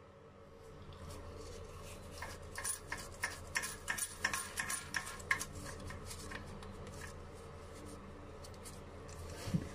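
A quick run of light clicks and taps from hard parts being handled, thickest between about two and five and a half seconds in, over a steady low hum.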